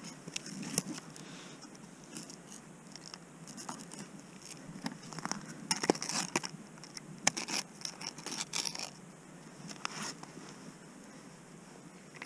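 Fishing line being wound by hand onto the plastic spool of a winter tip-up: irregular scratching, clicking and scraping of plastic and line, busiest in the middle and dying down after about nine seconds.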